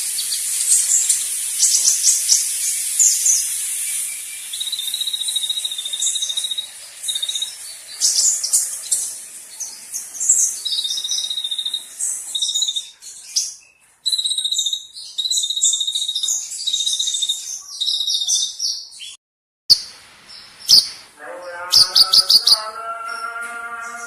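Kolibri ninja sunbird singing: fast, high-pitched twittering chirps and trills, broken by held high buzzing notes, with a brief break about 20 s in. Music comes in over the last few seconds.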